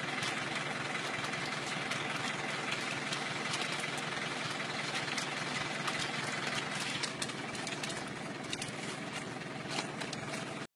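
An engine running steadily, with scattered sharp clicks and rustles over it, more of them in the second half; the sound cuts off suddenly at the end.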